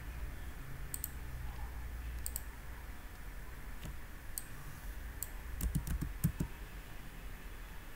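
Computer mouse and keyboard being used: sharp clicks, some in quick pairs, then a short run of keystrokes about three-quarters of the way in. A low steady hum runs underneath.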